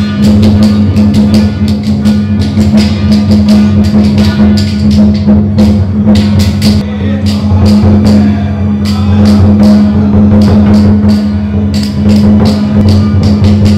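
Rapid, continuous beating of drums and cymbals over a steady low hum: the temple percussion that accompanies spirit mediums going into trance.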